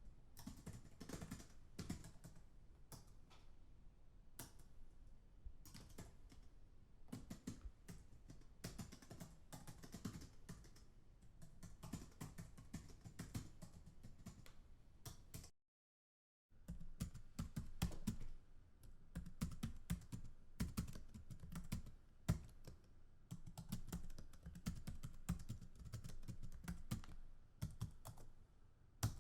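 Typing on a computer keyboard: rapid, irregular key clicks, broken by a dead-silent gap of about a second near the middle.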